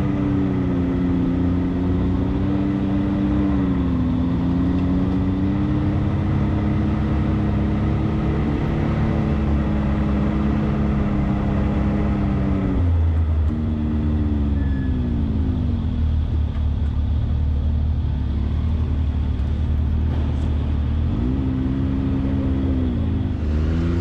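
Side-by-side UTV engine running steadily under way, over a constant low rumble of the machine on the trail. About halfway through the engine note falls as the revs drop, stays low for several seconds, then climbs again near the end.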